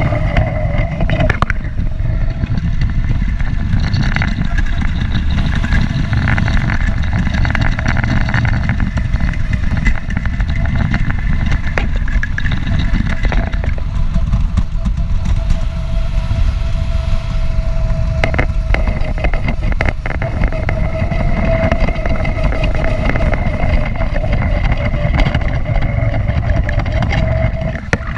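Go-kart engine running at a steady pitch as the kart drives round the track, under heavy wind rumble on the kart-mounted microphone.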